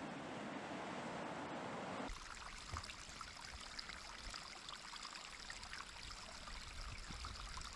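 Surf washing over rocks, a steady noise; about two seconds in it changes abruptly to a higher hiss with scattered small crunches and a low rumble, boots climbing through snow on a steep slope.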